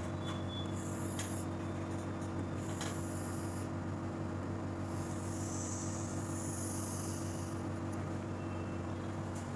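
Steady low electrical hum, with a few soft hissing scrapes of a pen drawing strokes on the board, the longest about five to seven seconds in.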